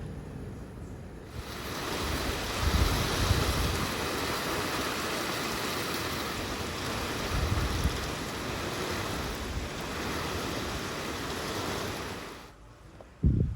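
Heavy rain pouring in a steady hiss, with low rumbles now and then; it cuts off abruptly near the end, followed by a short thump.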